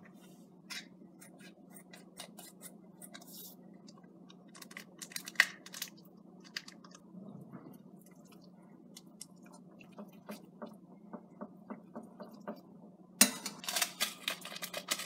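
Metal fork clinking and scraping against a stainless steel saucepan while instant noodles are mixed with their spicy sauce. It starts as scattered light clicks, then turns to quick, continuous scraping for the last couple of seconds, with a low steady hum underneath.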